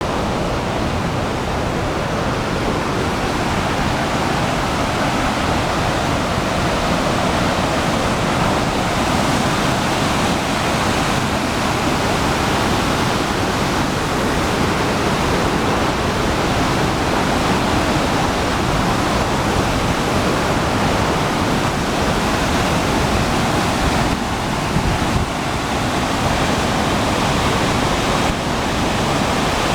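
Waterfall pouring, a loud, steady rush of falling water. The water spills over the buried remains of a hydroelectric plant.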